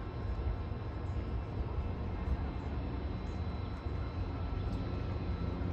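Steady low outdoor rumble, with no distinct duck calls.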